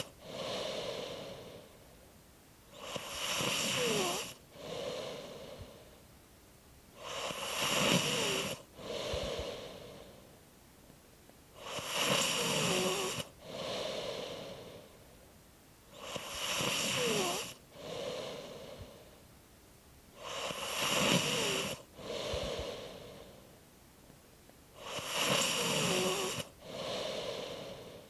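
A sleeper snoring in a slow, even rhythm, about one breath every four seconds. Each loud snore carries a faint squeak that glides down and back up in pitch, and a shorter, softer breath follows it.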